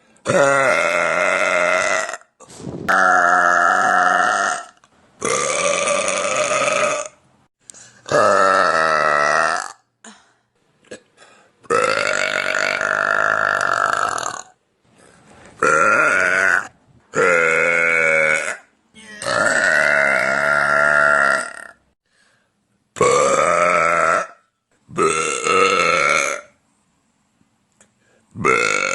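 A woman burping loudly, about ten long, drawn-out burps one after another, each lasting a second or two, with short silent gaps between them.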